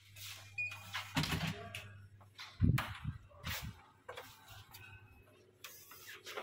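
Hotel room door being unlocked with a keycard and opened: a brief beep from the card lock, then clicks of the latch and handle and knocks and bumps of the door, the loudest a dull thud a little over two and a half seconds in, over a low steady hum.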